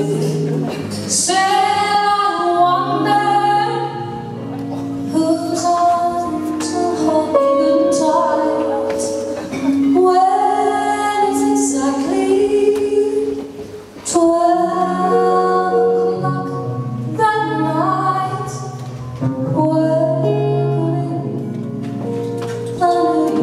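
A woman singing into a microphone with long, wavering notes, backed by electric guitar and upright double bass.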